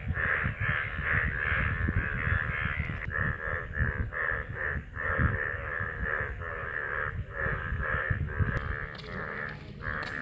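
Crows cawing over and over, short harsh calls following one another at about three a second without a break.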